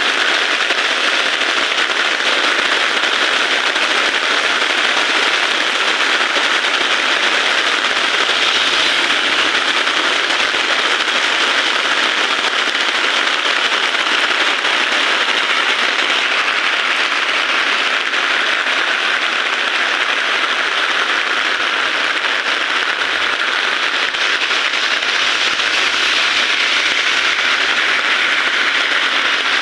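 Heavy rain falling as a steady, dense, crackling patter that holds unbroken throughout.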